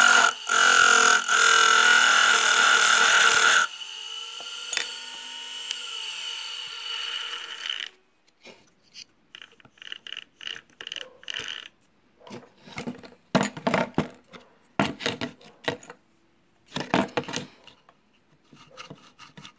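Homemade lathe driven by a washing-machine motor running with a loud whine, then switched off about three and a half seconds in and spinning down with a falling hum for about four seconds. After that come scattered short scrapes and knocks.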